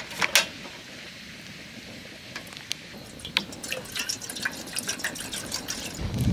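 Water poured from a plastic bottle into an aluminium camping pot, splashing and trickling. Near the end, a gust of wind rumbles on the microphone.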